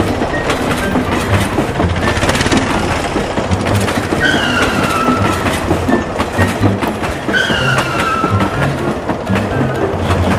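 Train running with a steady clatter of wheels on rails. Two whistle blasts, each about a second long and dipping slightly in pitch, sound about three seconds apart.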